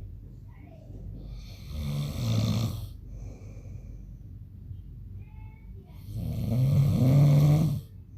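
A man snoring in his sleep: two long snores about four seconds apart, each a low buzzing drone with a hiss of breath over it, the second louder, and quiet breathing between them.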